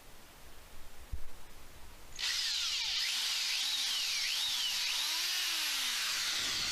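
Power drill starting a couple of seconds in and running continuously, its motor pitch repeatedly rising and falling as it works, typical of driving screws while reinforcing a screen door.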